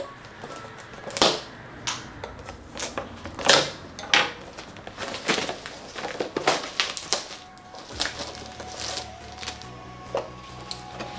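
Plastic and cardboard packaging being handled and opened by hand: irregular clicks and crackles. Quiet background music comes in about eight seconds in.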